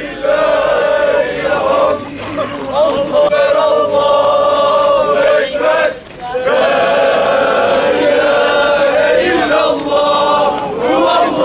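A crowd of marchers singing together in unison, long held notes in phrases with short breaks about two and six seconds in.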